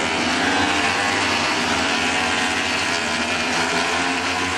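Racing motorcycle engine running at high revs with a steady note.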